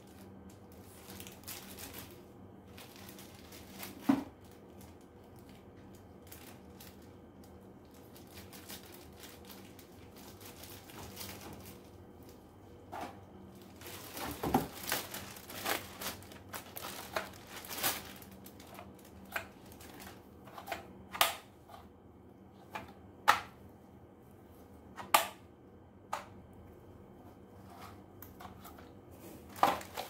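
Plastic packaging bags crinkling and rustling as vacuum-cleaner accessories are unwrapped and lifted from a cardboard box, with scattered sharp clicks and knocks of the plastic parts. It is mostly quiet at first, with one sharp click about four seconds in, and the handling grows busier from about halfway.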